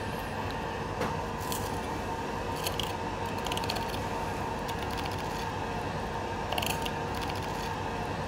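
Filleting knife cutting and scraping along a gilt-head sea bream's backbone and rib bones, in short scratchy strokes a few times, over a steady background hum.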